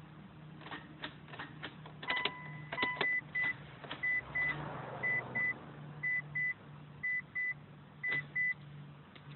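A few light clicks, then a car's warning chime: one longer high beep, then pairs of short high beeps about once a second.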